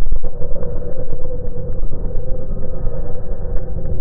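Heavy truck driving at highway speed, heard from inside the cab: a steady low rumble of engine and road noise with a constant hum.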